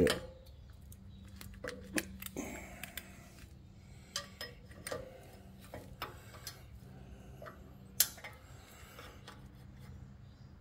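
Scattered light metallic clicks and taps from a hand driver and hands working the bolts of a stainless exhaust tip on a muffler, with a sharper click about eight seconds in, over a faint steady hum.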